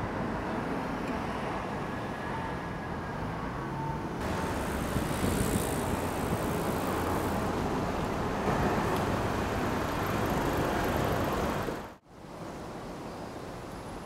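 Busy city road traffic, a steady noise of cars and trucks. About twelve seconds in it cuts off abruptly and gives way to a quieter, even hiss.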